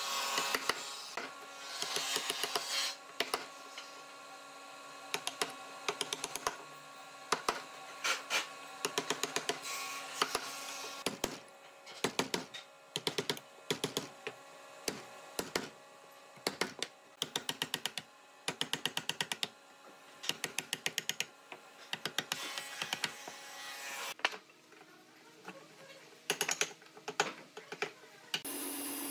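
Wooden mallet striking a steel chisel in quick runs of light taps with short pauses between, as the chisel cuts a recess into a wooden slab.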